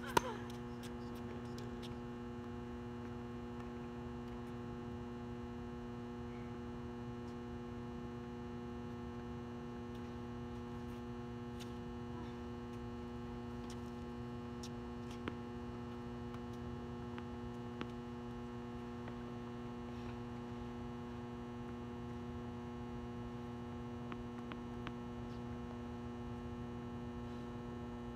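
Steady electrical mains hum, several even tones stacked one above another. A tennis racket strikes a ball sharply just after the start, and two faint knocks of a ball follow later.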